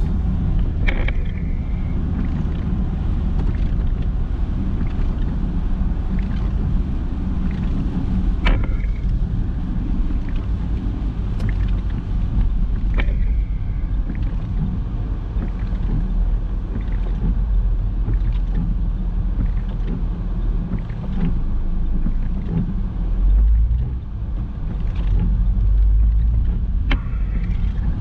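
Car driving on a wet road in heavy rain: a steady low road and engine rumble under the hiss of rain and wet tyres. A few short, sharp sounds stand out, about a second in, near 8 and 13 seconds, and near the end.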